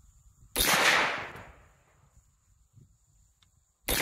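Two rifle shots from an M1 .30 carbine firing .30 Carbine rounds: one about half a second in and a second about three seconds later, near the end. Each sharp crack fades away over about a second.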